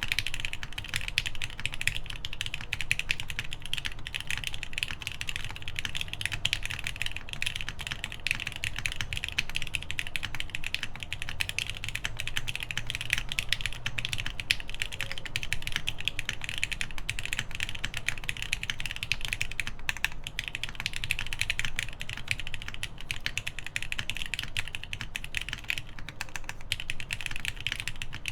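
Continuous fast typing on a mechanical keyboard with lubed Gateron Ink linear switches and GMK doubleshot ABS keycaps, dense clacking keystrokes at a steady pace.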